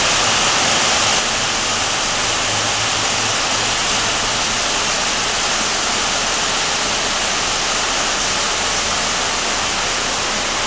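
Heavy rain falling steadily, a loud, even hiss.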